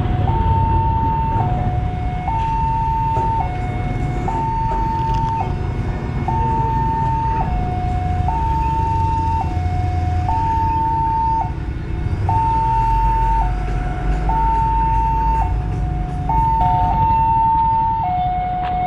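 Railway level-crossing warning alarm sounding a two-tone electronic signal, switching between a higher and a lower tone about once a second, over a low background rumble.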